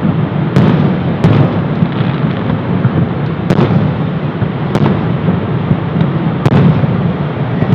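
Fireworks exploding overhead: about six sharp bangs at uneven intervals over a steady low roar.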